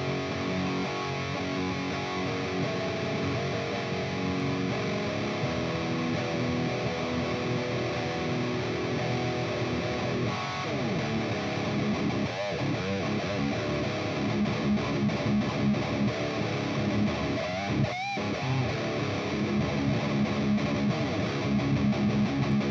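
Electric guitar played through a Mesa Boogie Triple Crown amp and 2x12 cabinet, picked up by a small wireless room mic: sustained notes and chords with several bent notes sliding up and down in pitch.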